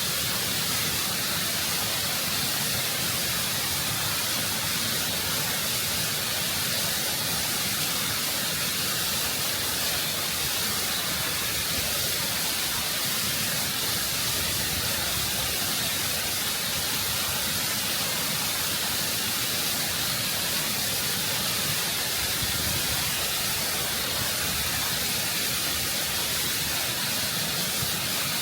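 Waterfall rushing over rock, heard close up: a steady, full hiss of falling water with no change in level.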